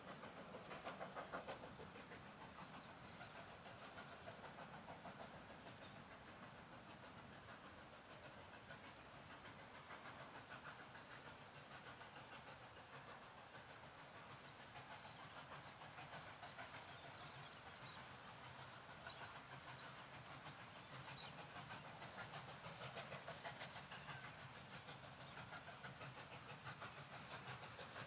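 Victorian Railways K class 2-8-0 steam locomotive K153 working a train in the distance, its exhaust beats faint and steady, growing a little louder near the end as it approaches.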